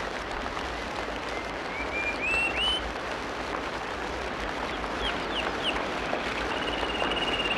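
A steady rain-like hiss with small birds chirping over it: a few rising notes about two seconds in, three quick down-slurred chirps about five seconds in, and a short trill near the end.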